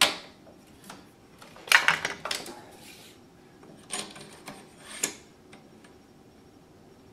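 Handling clatter from a folding solar panel's frame and support legs being swung out and set: a sharp click right at the start, a louder burst of clattering about two seconds in, then two more clicks around four and five seconds in.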